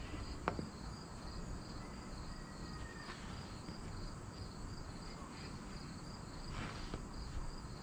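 Crickets chirping steadily in a high, even pulse. A sharp metallic click about half a second in and a couple of faint knocks come from the angle-iron roof rack being handled on the truck topper.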